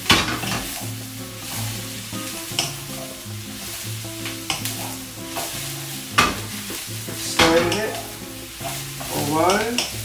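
Wooden spatula stirring and tossing mushrooms, tofu and onion in a hot frying pan while the food sizzles. There are sharp knocks or scrapes at the start and about six and seven seconds in, over background music.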